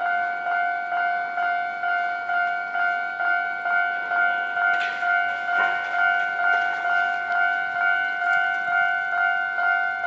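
Japanese railway level-crossing warning bell ringing steadily, an electronic two-tone ding repeating about twice a second. It signals that the crossing is closing or closed for an approaching train.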